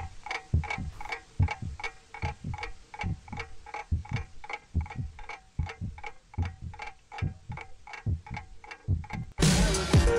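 A clock ticking steadily, about three ticks a second, over regular low thuds. Loud electronic music cuts in abruptly about nine seconds in.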